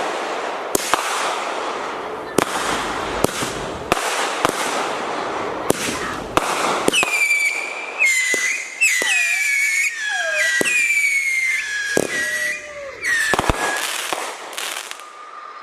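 Consumer aerial firework cake going off: a quick string of sharp bangs over dense crackling, then, about seven seconds in, a run of shrill whistles, each sliding down in pitch, with more bangs among them.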